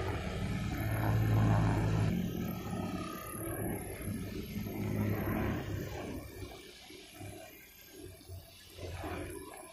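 Honda GX four-stroke backpack brush cutter running with a nylon string head, its engine pitch shifting as the throttle changes while it cuts grass. It runs louder through the first half and eases off after about six seconds.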